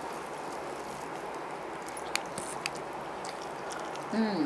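Eating by hand: a few faint clicks and smacks of chewing chicken over a steady background hiss, with a brief wordless voice sound near the end.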